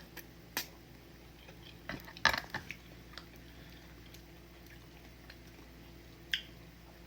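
Eating sounds from a person having udon noodle soup: a few short mouth smacks and clicks, clustered about two seconds in with one more near the end, over a faint steady hum.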